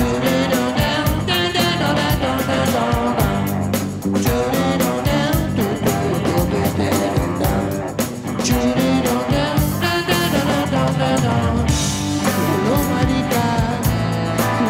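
Live rock band playing: electric guitars, bass and drums, joined by a horn section of trombone, trumpet and saxophone.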